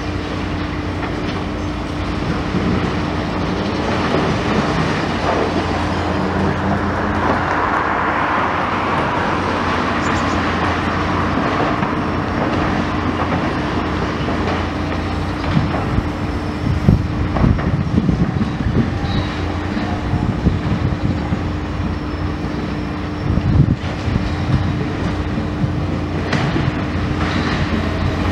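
Demolition excavator's engine and hydraulics running steadily while its crusher jaws tear into the building's steel and concrete, with irregular crunching and clattering of debris, heaviest past the middle and again near the end.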